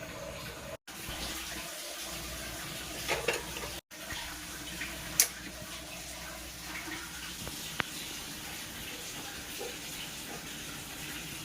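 Steady running water, like a tap running, with a few light clicks; the sound cuts out briefly twice.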